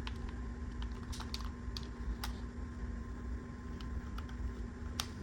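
Scattered light plastic clicks, one at a time and a second or so apart, from an Xbox controller's buttons being pressed while it is tested on a freshly replaced USB port, over a steady low hum.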